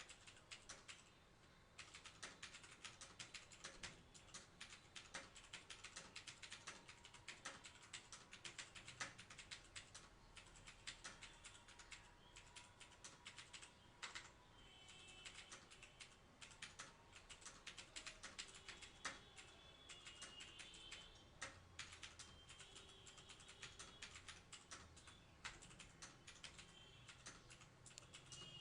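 Continuous typing on a TVS Gold mechanical keyboard with Cherry MX Blue clicky switches: a rapid, uneven stream of key clicks with a short pause about a second in.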